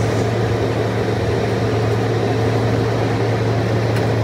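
Engine of a miniature park train running with a steady hum as the train rolls along, heard from an open passenger car.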